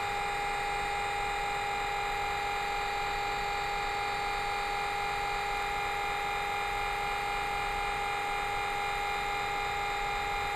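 Class 66 diesel locomotive's fuel priming pump running as a steady electric whine with no change in pitch or level, played back through the small speaker of an OO gauge model's DCC sound decoder. It is the priming stage of the start-up sequence, before the engine fires.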